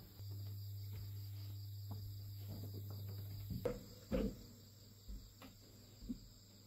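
Crickets chirping steadily at night, over a low steady hum that stops about halfway. Near the middle come a couple of knocks and then a few fainter clicks, from tools and boards being handled on a plywood floor.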